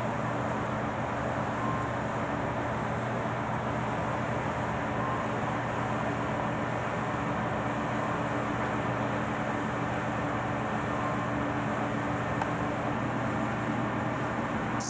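A steady low hum over a hiss, with no distinct events.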